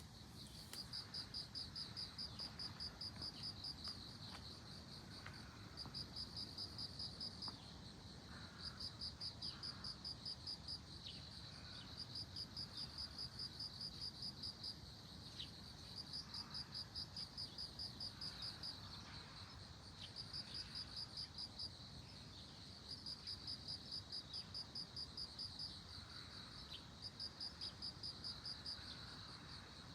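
Suzumushi (Japanese bell cricket) singing: high, ringing trains of rapid pulses, each lasting two to three seconds, repeated with short pauses between them.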